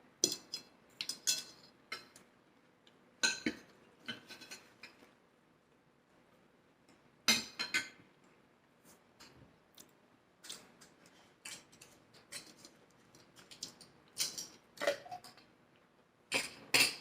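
Fork and knife clinking and scraping against a plate in scattered sharp clicks during a meal.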